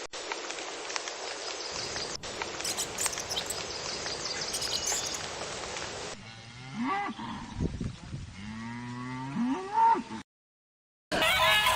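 A steady hiss of background noise, then about six seconds in a cow moos twice, the second moo long and rising in pitch at its end.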